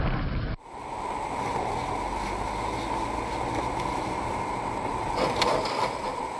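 A loud rushing noise cuts off abruptly about half a second in. It gives way to the steady, muffled road and engine noise of a car driving, heard from inside the cabin through a dashcam microphone, with a few faint clicks about five seconds in.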